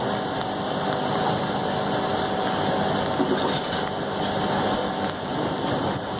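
Steady rain mixed with the low, even hum of diesel locomotive engines, heard from a slowly moving passenger train.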